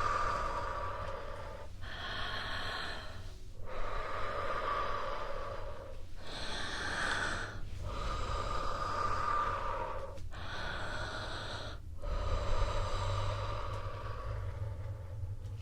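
Slow, deep human breaths close to the microphone, one breath after another, each about two seconds long with a short pause between, about seven in all.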